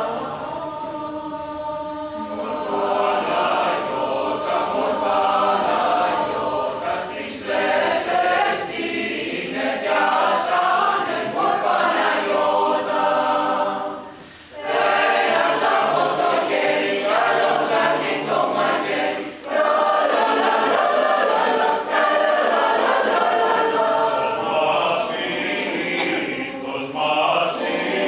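A mixed four-part choir of men and women singing unaccompanied, in a four-part arrangement of a Cappadocian Asia Minor folk song. The singing breaks off briefly about halfway through, then resumes.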